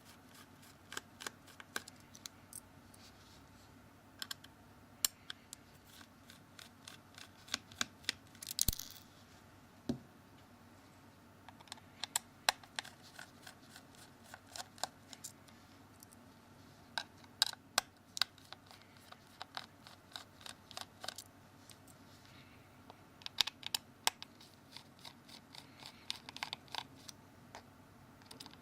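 Small Phillips screwdriver undoing the screws of a Samsung Galaxy S2's frame: scattered small sharp clicks and ticks, with a brief scrape about nine seconds in.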